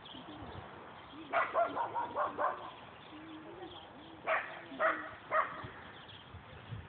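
A dog barking: a quick run of barks, then three single barks about half a second apart.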